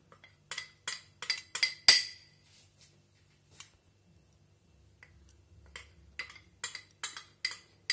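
Spoon tapping on a small bowl held upside down over a mixing bowl to knock the flour out: a run of light clinks, the loudest about two seconds in, a pause, then more clinks near the end.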